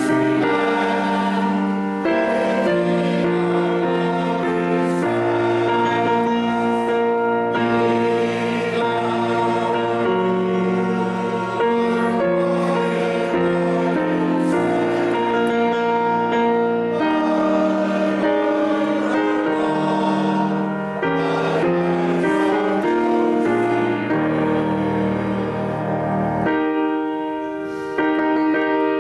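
Slow church music on keyboard: sustained chords over long held bass notes, changing every second or two.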